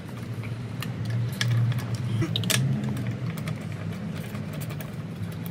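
Scattered light metallic clicks of a car's wheel bolts being undone and handled with a spanner, over a steady low hum.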